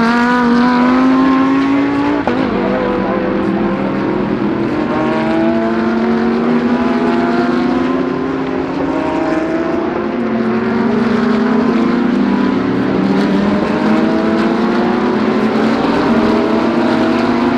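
GT3 race cars accelerating on the circuit: several engines overlap, their notes climbing and dropping back again and again as they shift up through the gears.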